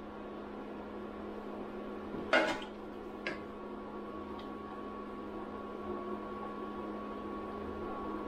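A welding machine switched on and humming steadily while idle, with no welding arc. A sharp metal clank sounds about two and a half seconds in and a lighter click about a second later.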